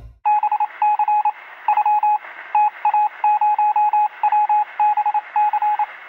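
Electronic beeps in quick, irregular groups over a steady hiss, with the thin sound of a telephone line, much like touch-tone dialing.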